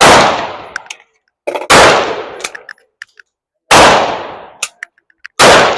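Four single gunshots about two seconds apart, each with a short decaying echo, and faint small clicks between them. The gun is firing subsonic rounds that the shooter says give too little recoil to cycle the action, so the cases are not ejecting.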